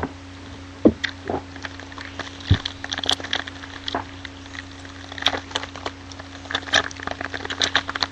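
A sealed trading-card box and pack being opened by hand: an irregular string of crackles, clicks and taps from cardboard and wrapper, over a steady low hum.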